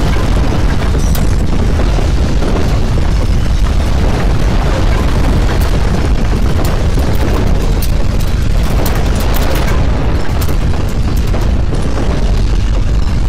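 Loud, continuous deep rumble of earthquake ground shaking, with scattered rattling clicks through the middle.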